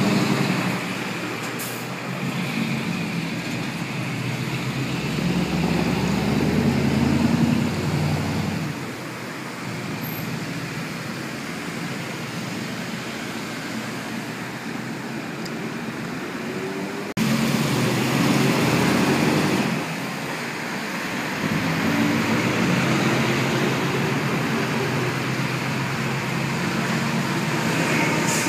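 Street traffic with heavy diesel dump trucks passing; the engine note swells and fades as trucks go by, louder around the start, near a third of the way in and just after an abrupt jump in level about two-thirds through.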